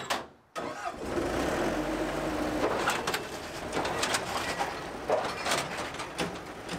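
Bobcat skid-steer loader running and straining as it pulls the crumpled front bumper and frame of a wrecked pickup outward on a chain, with scattered clicks and knocks. A low rumble in the first couple of seconds gives way to a lighter, uneven sound.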